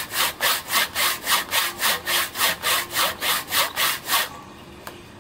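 Hand saw cutting through a log in quick back-and-forth strokes, about four a second, each a dry rasp; the saw is dull and needs sharpening. The sawing stops about four seconds in, and a small click follows.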